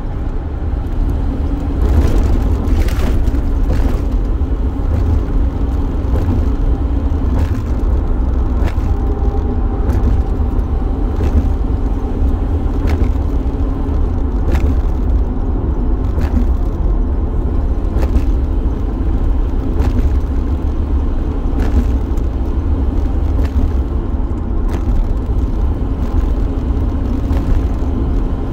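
Road and engine noise inside a moving van's cabin: a steady low rumble, with a faint tick every second or two.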